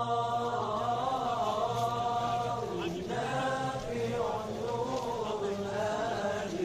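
A man chanting an Islamic recitation in long, wavering held notes, with a short break about three seconds in.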